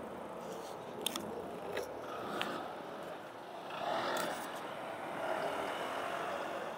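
City street traffic noise at a busy intersection, with a few sharp clicks about one and two seconds in and a vehicle passing close about four seconds in.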